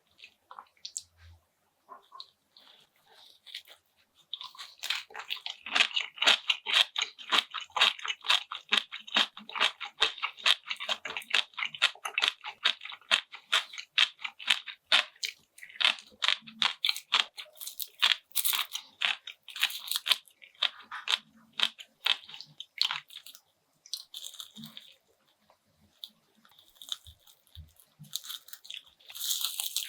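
Close-miked chewing of crisp food: a person crunching with rapid, dense crackles for most of the stretch, easing into a few scattered bites, then crunching again near the end.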